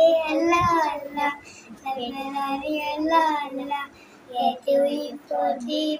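A child singing a melody with held, wavering notes, with music behind.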